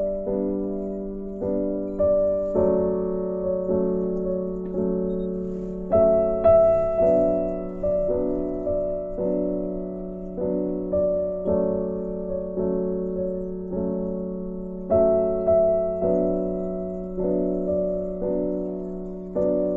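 Background music: a slow piano piece, notes struck at a steady pace, each ringing and fading.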